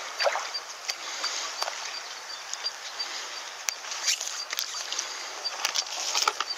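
Clicks and rustles of handling in grass and gravel as a landed sea bass and a measuring tape are laid out on the bank, over a steady outdoor hiss. A faint high pip repeats about three times a second through most of it.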